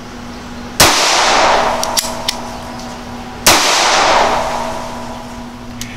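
Two shots from a 9mm Bond Arms Stinger double-barrel derringer, about two and a half seconds apart, one from each barrel. Each is a sharp crack followed by a long fading ring. A few faint clicks come between them.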